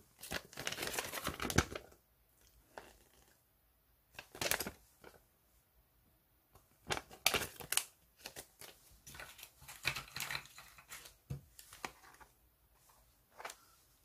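Folded paper warranty leaflet rustling and crinkling as it is unfolded and handled: a longer rustle in the first two seconds, then short rustles and light ticks with quiet gaps between.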